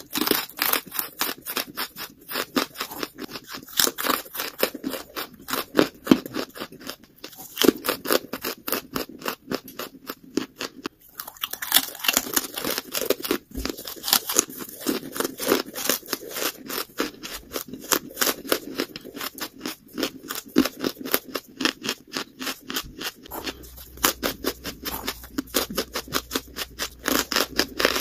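Lump charcoal crunched and chewed in the mouth: rapid, crisp crackling, several cracks a second, with a brief pause about eleven seconds in.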